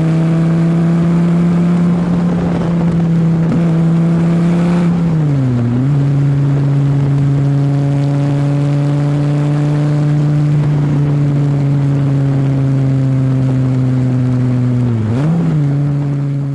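Dodge Viper ACR's 8.4-litre V10 through its side-exit exhausts, running at steady, moderate revs. The engine note dips and recovers twice, about five seconds in and near the end, then starts to fade out.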